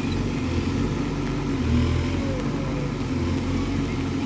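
Case 851EX backhoe loader's diesel engine running steadily, swelling slightly about two seconds in.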